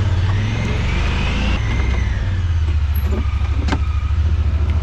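Honda Pioneer 1000-5 side-by-side's engine running under way, with a steady pulsing throb. A whine rises in pitch and then falls in the first two seconds, and a couple of sharp clicks come about three seconds in.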